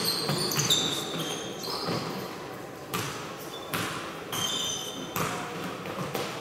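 A basketball bouncing on a gym floor during play, a bounce roughly every second, with short high-pitched shoe squeaks in the first second and a half and again near the end.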